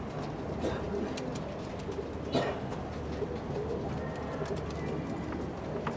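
Domestic pigeons cooing, a low steady murmur, with scattered light clicks and one short, louder noise about two and a half seconds in.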